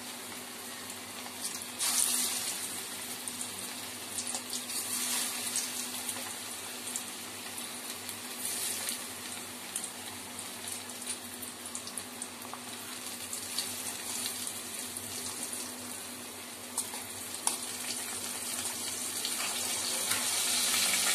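Marinated fish pieces frying in hot oil in a steel kadai over a medium flame. The oil sizzles with a steady hiss and scattered crackles and pops.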